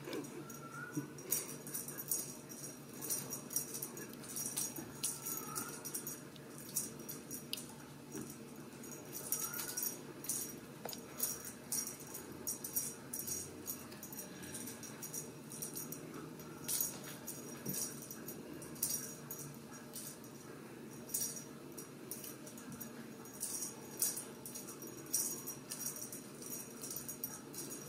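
Light jingling and rattling in short, irregularly spaced bursts throughout.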